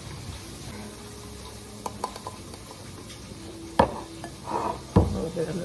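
A few light clicks, then two sharp knocks of kitchen items, a tin of black pepper among them, being set down on a wooden cutting board.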